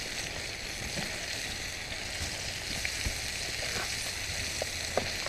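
Sausage slices sizzling and frying in a pan over a campfire, a steady hiss with a few small pops.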